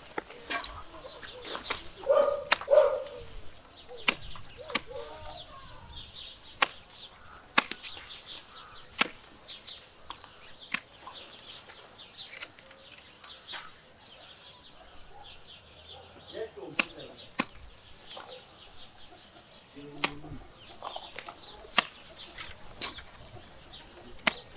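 Hand pruning shears snipping branches of a flat peach tree: sharp single clicks at uneven intervals, about one every second or so. A dog barks a few times near the start.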